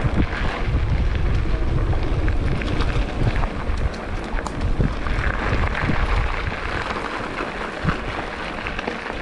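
Wind buffeting an action camera's microphone while riding a mountain bike along a dirt trail, with scattered clicks and rattles from the bike and tyres. The low wind rumble eases about halfway through.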